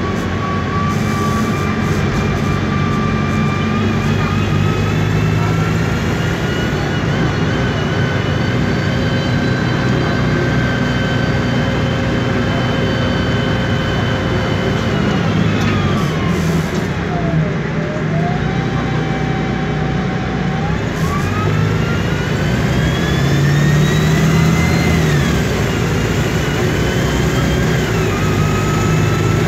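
Whine of the Voith DIWA 864.3 automatic gearbox on a MAN Lion's Classic city bus, heard from inside, over the low hum of its MAN E2876 CNG engine. The whine holds steady, falls steeply about halfway as the bus slows, then rises again as it picks up speed, dipping once more near the end.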